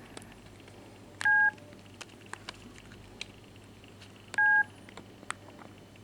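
Explay BM10 mobile phone beeping: two short electronic beeps about three seconds apart, with faint clicks in between.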